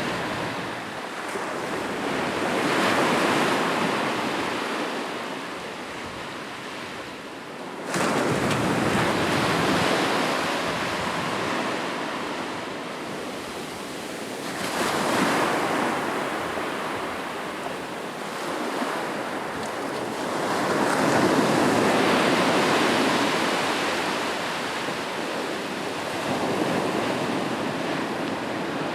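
Ocean surf: waves breaking and washing up a beach in a continuous hiss. The sound swells and fades with each wave, about four times, and one wave comes in suddenly about eight seconds in.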